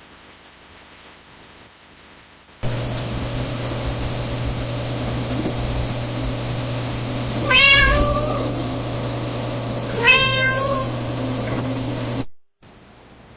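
Domestic cat meowing softly: two short meows about two and a half seconds apart, over a steady low hum in the background.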